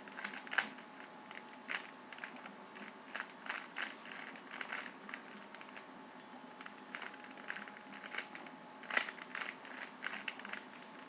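Plastic Rubik's Cube layers being turned by hand: a run of quick, irregular clicks and rattles, with a louder snap about nine seconds in.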